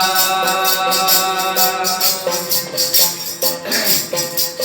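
Instrumental interlude of a devotional bhajan: a melody instrument plays held notes that change every second or so over a quick, steady percussion beat.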